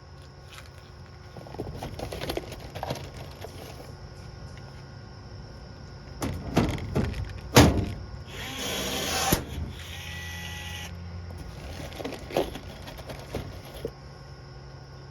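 Scattered knocks and clatter of sheet-metal work, with a short whir of a small electric power tool running about two-thirds of the way through.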